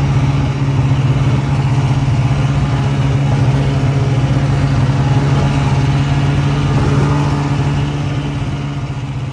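A motor vehicle engine running at a steady pitch, with a hiss of road or wind noise over it. It cuts in abruptly and fades out near the end.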